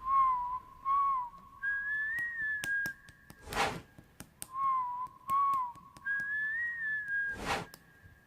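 Whistled tune: two short notes, then a longer, higher phrase, with a whoosh closing each phrase. The identical phrase plays twice, like a looped intro jingle.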